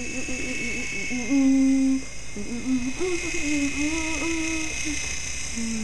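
A person humming a wavering tune, over the steady high whine of a toy remote-control helicopter's small electric motors.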